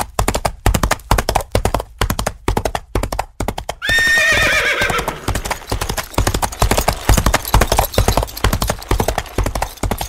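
Horse hooves clip-clopping in a quick, even beat, with a loud horse whinny about four seconds in that falls in pitch as it goes.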